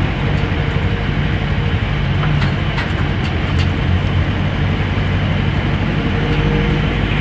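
Motor vehicle engine running with road noise, heard from inside the vehicle as it moves. A few light clicks come between about two and three and a half seconds in.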